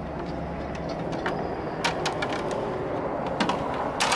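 Scattered metallic clicks and knocks of tire and tool work in an auto service bay, over a low steady hum that stops about a second in.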